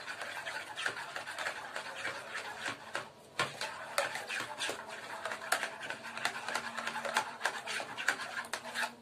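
Spoon stirring a thin flour batter in a ceramic bowl: quick, irregular clicks and taps of the spoon against the bowl, pausing briefly about three seconds in.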